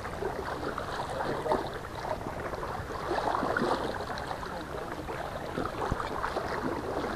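A person wading through shallow lake water, with irregular splashing and sloshing at each step.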